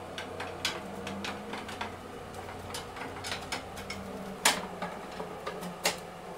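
Clicks and knocks from a Pilates Cadillac's steel tube frame and trapeze bar fittings as the overhead bars are gripped and worked by hand, its bolts not yet fully tightened; two louder knocks come in the second half. A steady low hum runs underneath.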